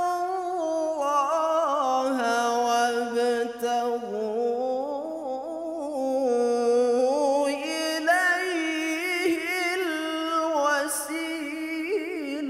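Male qari reciting the Quran in the melodic tilawah style, one long phrase full of rapid wavering ornaments, dipping lower near the middle and climbing higher in the second half.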